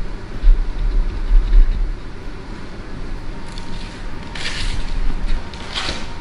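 A low rumble, heaviest in the first two seconds, with two short crinkly rustles of baking parchment about four and six seconds in as sugared biscuit dough is set down on the lined tray.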